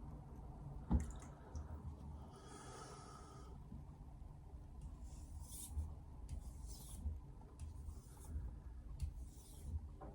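Knife edge being stroked across a Chosera 3000 grit whetstone: a sharp knock about a second in, one longer scrape, then a run of short scraping strokes about one a second.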